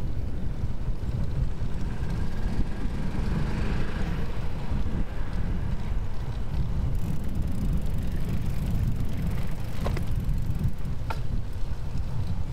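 Wind buffeting the microphone of a camera carried on a moving bicycle: a steady low rumble, with two short ticks about a second apart near the end.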